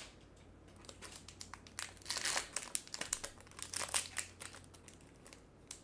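Foil booster-pack wrapper crinkling in irregular bursts as it is handled and opened, loudest about two seconds in and again near four seconds.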